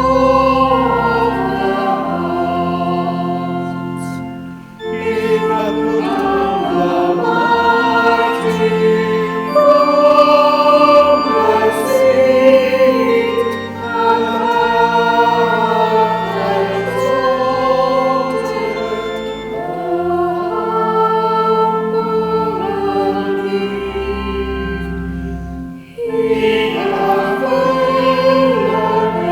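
Church choir singing in parts, with organ accompaniment holding low sustained notes beneath; the sung phrases break briefly about five seconds in and again near the end.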